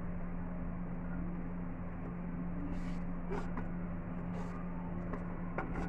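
Steady low hum of a kitchen appliance, with a few soft scrapes and taps as bread cubes are slid off a wooden chopping board into a frying pan.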